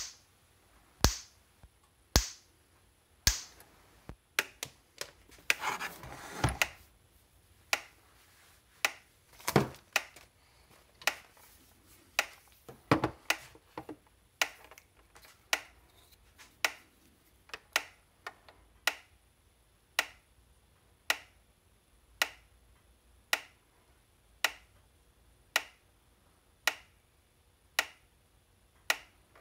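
Gallagher M1500 electric fence energizer pulsing, a sharp snap about once a second, steady and even throughout: the repaired unit firing normally under test. A few rustling and knocking handling sounds come in around six, ten and thirteen seconds in.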